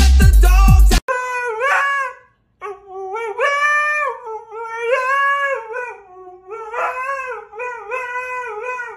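Husky howling: a series of long, wavering calls that rise and fall in pitch, with short breaks between them. For about the first second, loud bass-heavy music plays, then it cuts off abruptly.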